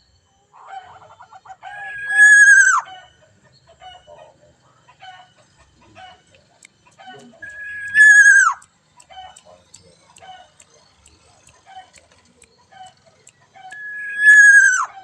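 A rooster crowing three times, about six seconds apart: each crow builds up, holds a high steady note and drops sharply at the end. Short, quieter bird calls come between the crows.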